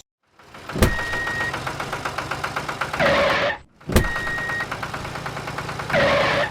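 Mechanical vehicle sound, the same sequence played twice: a sharp click, about two seconds of rapid, even chugging, then a short hissing burst.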